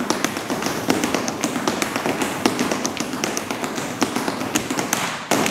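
Push brooms swept and struck on a hard floor as percussion: a steady swishing of bristles under quick, sharp taps of the broom heads and handles, with a harder hit near the end.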